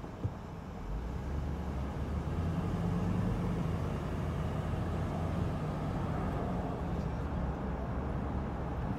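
Steady city street traffic heard from the roof of a car, with the car's own engine and road noise swelling about a second in as it pulls away from a stop. A single short click comes just before that.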